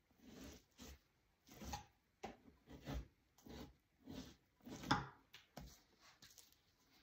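Knife scraping fat and flesh off a beaver hide stretched over a wooden fleshing beam, in about ten short, uneven strokes, the loudest about five seconds in.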